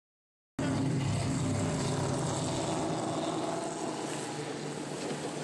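Outboard motor of a motorboat running close alongside, a steady engine tone under a rush of wind and water. It cuts in abruptly about half a second in and grows a little fainter.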